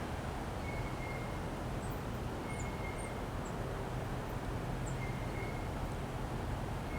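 Steady low rumble of trackside ambience, with short high bird chirps and a brief whistled note repeating about every two seconds.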